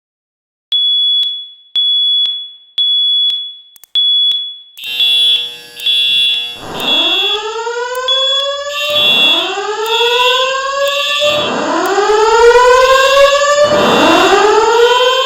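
Fire alarm system sounding: a high electronic tone pulses on and off about once a second, then further alarm tones join in and a rising whoop repeats about every two and a half seconds. The whoop is the alert tone of a voice evacuation system, which comes before the spoken evacuation message.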